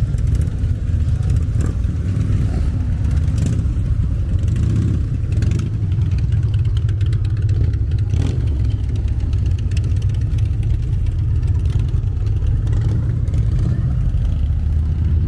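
Several motorcycle engines running together in a low, steady rumble.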